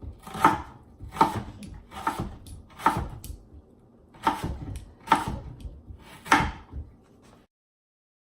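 Knife chopping onion: slow, separate strokes, roughly one a second, that stop about seven seconds in.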